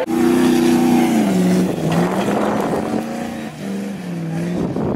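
An off-road competition 4x4's engine revving hard under load. Its pitch drops about a second in, then holds and shifts up and down in steps, with a rush of noise from the car partway through.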